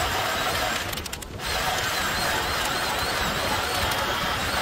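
Reciprocating saw (Sawzall) cutting steadily through tough material, with a brief break in the cut about a second in.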